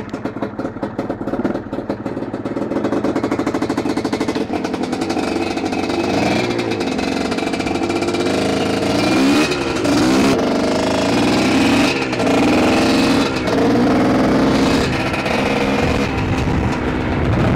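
A GR7 250 cc single-cylinder two-stroke enduro motorcycle engine, just started, idling with a quick even beat. It then pulls away and revs up, its pitch rising and dropping repeatedly as it accelerates.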